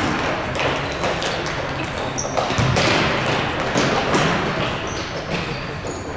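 Soccer ball thudding as it is kicked during play, several dull strikes over a steady background of distant voices.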